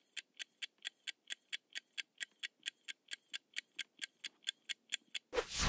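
Countdown-timer ticking sound effect: even, clock-like ticks at about four to five a second while the answer timer runs down. Near the end comes a brief, louder sound effect as the answer is revealed.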